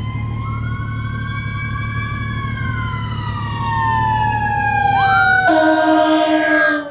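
Fire engine and ladder truck sirens wailing as they respond to a call, two siren tones slowly sliding in pitch, one jumping sharply upward about five seconds in. About five and a half seconds in, a loud horn blast joins them and cuts off abruptly near the end.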